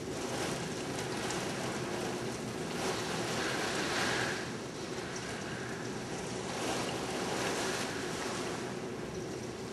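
Hurricane wind and driving rain, a steady rushing noise that swells and eases in gusts, stronger about three to four seconds in and again near the end.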